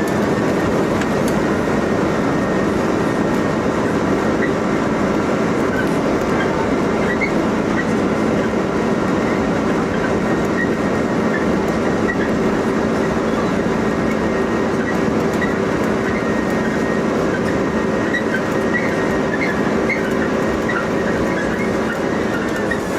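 Airbus A330's jet engines running at high thrust on the takeoff roll: a steady loud rush with several steady whining tones over it. Near the end the highest whine begins to drop.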